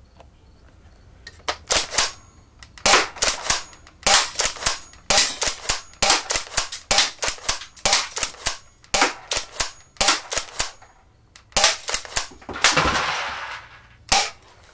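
Double Eagle M58A spring-powered airsoft pump shotgun fired over and over, pumped as fast as possible with the trigger held: quick clusters of sharp plastic clacks from the pump action and spring shot, with BBs striking the aluminium cans. Near the end comes a longer rattling clatter.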